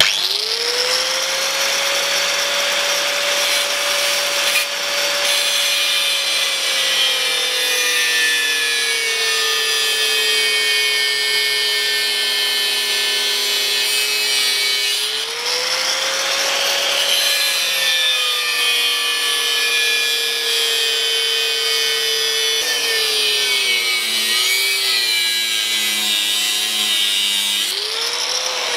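Angle grinder cutting at an angle into the steel inner bearing race left on a front wheel hub, to weaken the race so it can be knocked off. The motor spins up at the start, and its whine sags slowly under load, rising again about halfway and near the end as the cut is eased off, over a steady grinding hiss.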